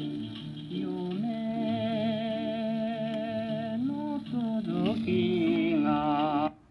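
A record playing on a portable record player through its built-in speaker: music with long held notes that waver with vibrato. The music cuts off suddenly near the end.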